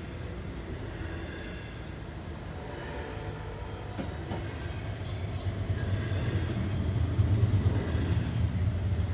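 CSX train on the move, a steady low rumble that grows louder in the second half as it draws nearer. There is a single sharp click about four seconds in.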